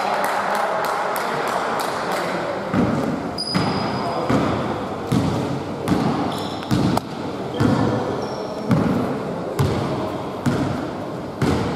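A basketball being dribbled on a hardwood court, bouncing about once a second, with short sneaker squeaks on the floor. It follows a couple of seconds of general noise in the hall.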